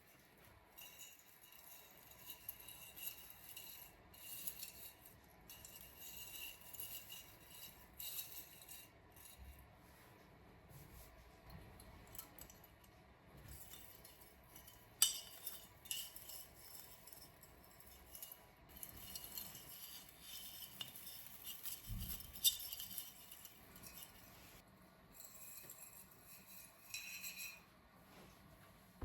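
Faint, irregular clinking and crinkling of small objects being handled by hand, with a sharper click about fifteen seconds in and another about twenty-two seconds in.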